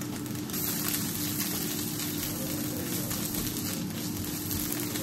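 Steady sizzling of sambal bawang frying in oil in a pan with fried-rice ingredients, over a steady low hum.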